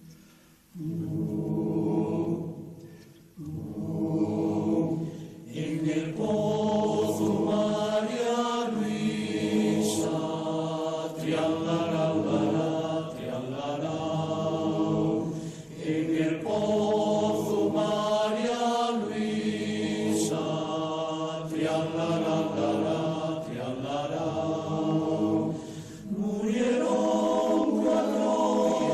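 Choral music: several voices singing slow, held chords that change every second or two, coming in after a short quiet about a second in.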